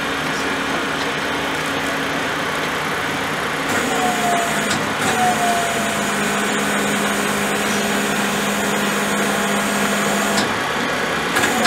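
Heavy road transporter's diesel engine running steadily as it moves a railway car slowly. A short faint squeal comes twice about four to five seconds in.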